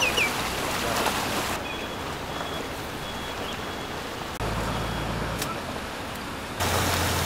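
Steady outdoor hiss of water and open air beside a fish pond, with a rain-like texture, whose tone changes abruptly two or three times where the shots are edited together.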